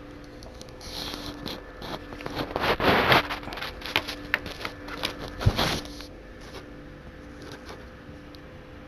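DVD cases being handled: a run of scrapes, clicks and rustles, loudest about three seconds in, with a sharp knock about halfway through, then only a faint steady hum.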